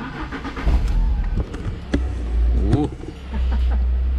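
The 2.0 Twin Spark four-cylinder engine of an Alfa Romeo 146 ti with a modified exhaust running at low revs, heard from inside the cabin as a steady low drone. A few light clicks are mixed in.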